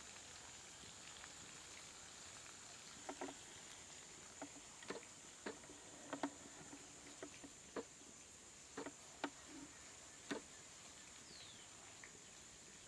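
Charred, dried banana leaves crackling as a cooked fish parcel is peeled open: scattered short, crisp crackles, starting about three seconds in and stopping about ten seconds in.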